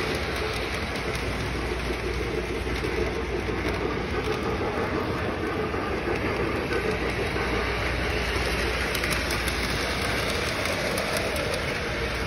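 Lionel model trains running on a layout of three-rail track, making a steady rolling and motor noise.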